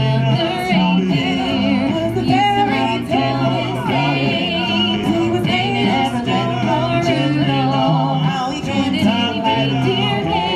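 A vocal group singing in harmony, with a low bass part holding long notes beneath the other voices.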